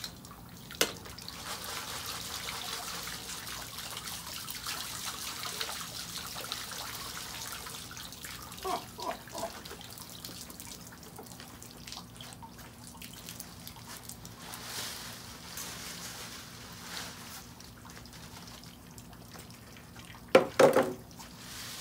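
Water trickling and dripping out of a plastic crate of freshly washed bay leaves as it is lifted from a tub of rinse water, most strongly in the first few seconds and then fading. A brief loud noise comes near the end.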